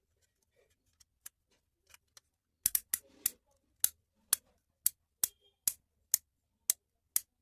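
A series of sharp, separate clicks, faint at first, then louder ones at about two a second from roughly two and a half seconds in.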